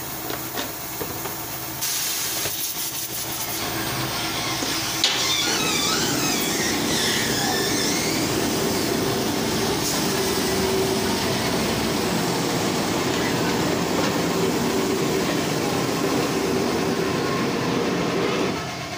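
Plastic extrusion blow-moulding machine running with a steady mechanical noise and hiss. It gets louder about two seconds in and again at a sharp click about five seconds in, then holds steady until it drops off just before the end.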